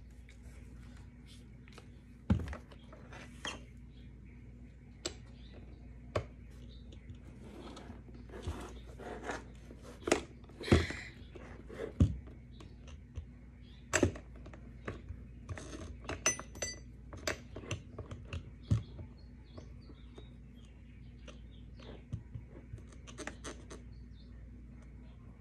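Irregular clicks, knocks and light scrapes of hands and a small tool working on a quad roller skate's wheels and axle hardware, with a few sharper knocks around the middle, over a faint steady hum.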